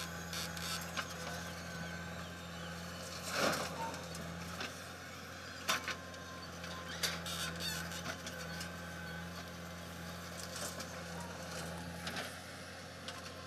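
Diesel engines of a JCB backhoe loader and a farm tractor running steadily while the backhoe digs soil, with a few sharp knocks and clatters now and then.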